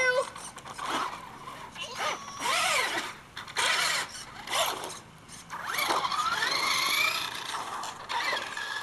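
RC race car's motor whining in several short surges, rising and falling in pitch as it speeds up and slows, with a longer rising whine about six seconds in.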